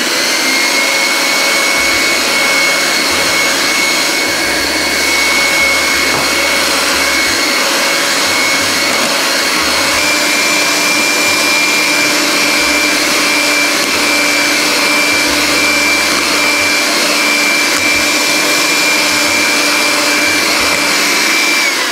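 Electric hand mixer running steadily, its beaters whipping cold cream in a stainless steel bowl. A steady whine in the motor noise steps slightly higher about halfway through. The motor cuts off near the end, once the cream is firmly whipped.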